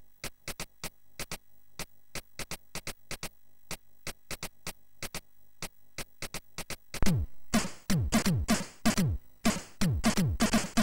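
Commodore 64 SID-chip demo music in a drums-only break: short, crisp noise hits at about four a second. About seven seconds in, louder synth drum hits with a steeply falling pitch join in.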